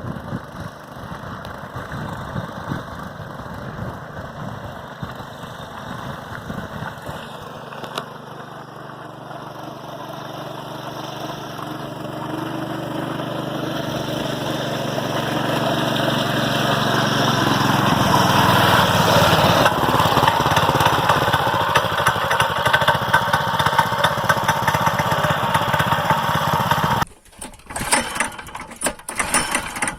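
Small two-wheel-drive motorcycle's engine running, growing steadily louder through the middle, then cutting off abruptly near the end to a choppy, uneven sound.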